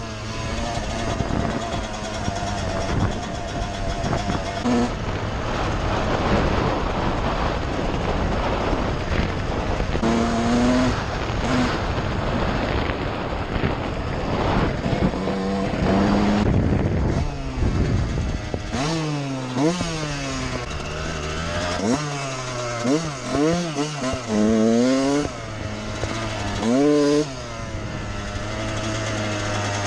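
1999 Suzuki RM 125 two-stroke dirt bike engine running hard at high revs, then, about two-thirds of the way through, revving up and dropping back again and again, with the engine idling between the revs.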